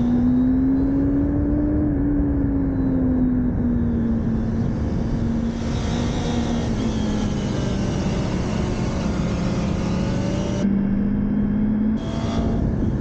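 Motorcycle engine running on track. Its pitch rises over the first couple of seconds, eases off, then holds steady, under a constant rush of wind noise.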